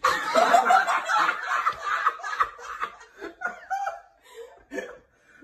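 Women laughing hard. It breaks out loud and all at once, then dies down into shorter and shorter bursts.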